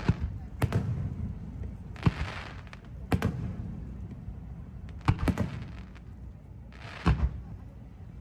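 Aerial fireworks shells bursting: a string of sharp bangs at uneven gaps of roughly half a second to two seconds, a few of them followed by a brief hiss.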